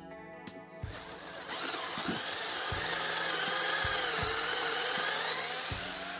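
Cordless drill boring a freshly sharpened twist bit into a wooden board. The motor whine wavers in pitch under load, starting about a second in and getting loud shortly after.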